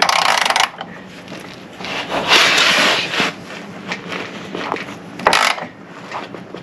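A stiff bolt on a Jeep Wrangler JL creaking and grinding in its nut as it is turned with a long ratchet, in three gritty bursts at the start, about two seconds in and about five seconds in. The threads are binding; the crew wonders whether the factory used a lot of thread-locker on these bolts.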